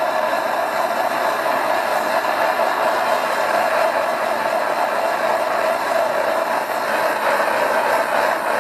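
Hose-fed propane torch burning steadily, a constant rushing noise with no breaks, while its flame is played along a bamboo stick to heat-treat it.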